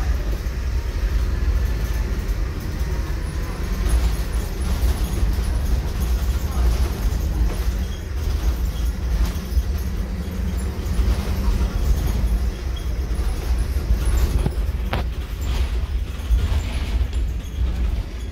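Interior of a Scania-chassised ADL Enviro 300 bus on the move: a steady low drone from the diesel engine and drivetrain with road noise through the body, and a single sharp click near the end.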